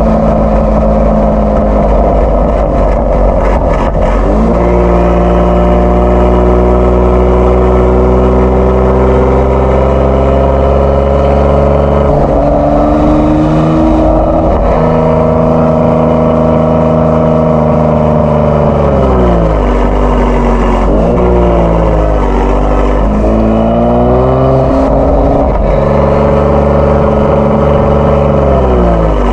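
Kia Stinger 3.3 twin-turbo V6 running through a JSR Performance aftermarket exhaust while driving. The engine note climbs slowly under load with a couple of upshifts, falls off as the throttle is lifted about two-thirds in, rises briefly again, then drops near the end.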